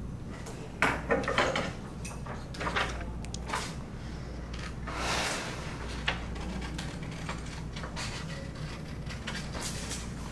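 A pen and a sheet of paper being handled on a wooden tabletop: a cluster of sharp knocks and clicks about a second in, more scattered clicks, and a short paper rustle around the middle, over a steady low hum.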